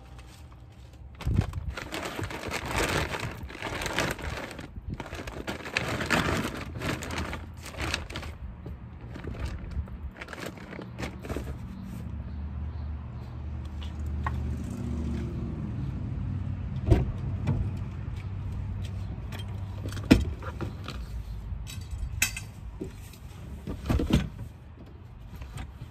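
Shopping bags and gear rustling and knocking as they are carried to and loaded into a minivan's open cargo area. There is a low rumble in the middle, and several sharp knocks come near the end as items are set down.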